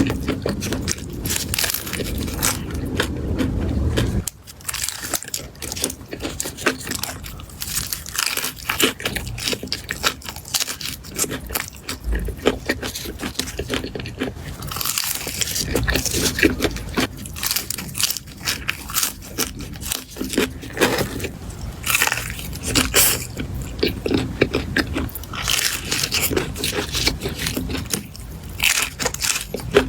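A person eating with loud crunching bites and chewing: a dense run of short, crisp clicks and crackles, fuller and lower over the first few seconds.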